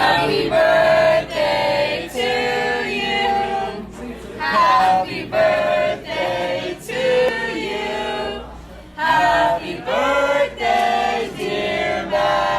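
Several voices singing together in a choir-like group, in phrases with short breaks between them.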